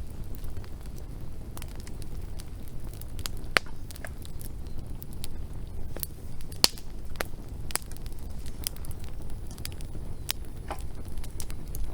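Campfire burning: a steady low rumble of flames with irregular sharp pops and snaps of wood, two louder pops about three and a half and six and a half seconds in.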